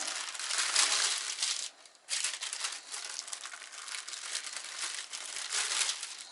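Paper crinkling and rustling as it is handled and wrapped around a log of cookie dough, with a short pause about two seconds in.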